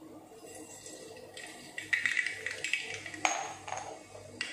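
Mustard seeds sizzling as they hit hot vegetable oil, the sizzle starting about a second and a half in, with a few sharp pops as the seeds begin to crackle.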